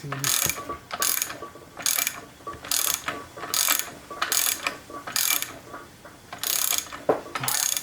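Hand ratchet wrench being worked in short strokes, each stroke a quick run of pawl clicks, about one stroke a second, with a single knock near the end.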